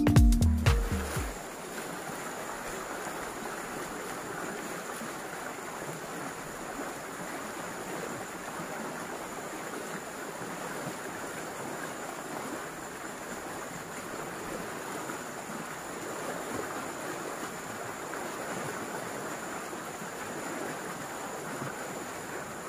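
Background music cuts out about a second in. After that comes the steady, even rush of fast, turbulent muddy river water running over a shallow riffle.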